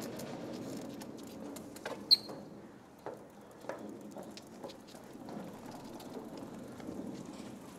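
Bicycle rattling and clicking as it rolls along, with small irregular ticks over a low rumble and one sharp click with a short ring about two seconds in.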